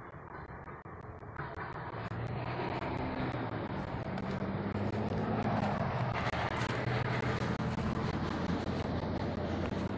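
A car driving past, its engine and tyre noise growing louder over the first five seconds and then holding.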